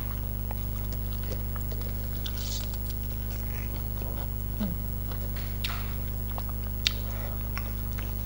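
A person chewing a mouthful of pasta, with a few small clicks and taps, the sharpest about seven seconds in, over a steady electrical hum.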